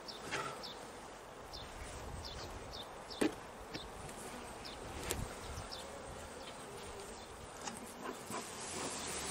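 Honey bees buzzing at an opened hive, with cloth and quilted insulation rustling as it is pulled off the frames, and a single sharp knock about three seconds in.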